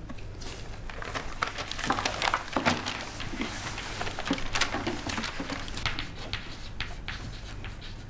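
Chalk tapping and scratching on a chalkboard as words are written by hand: irregular short clicks and scrapes.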